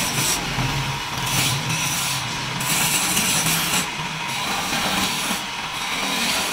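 Wood lathe turning a wooden chair-leg spindle while a hand chisel cuts into it: a steady scraping hiss of the cut that swells and eases with each pass of the tool, over the low hum of the lathe's motor.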